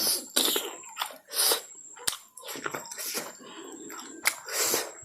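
Close-miked chewing of fatty pork: wet, irregular smacks and clicks of the mouth with short breathy bursts in between.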